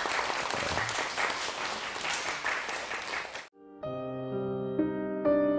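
Students applauding, cut off abruptly about three and a half seconds in; after a brief gap, piano music begins.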